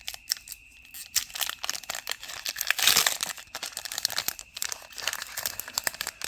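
Foil wrapper of a Pokémon trading card booster pack crinkling and tearing as it is opened by hand, with many small crackles and a louder rip about three seconds in.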